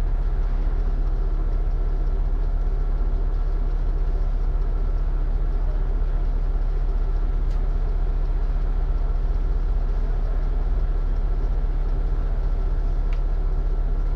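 Double-decker bus engine idling while the bus stands still: a steady low drone heard from inside the bus.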